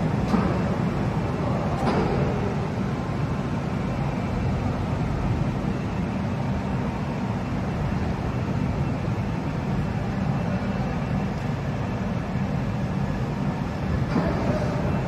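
A steady, low mechanical rumble, like machinery running, that holds even throughout.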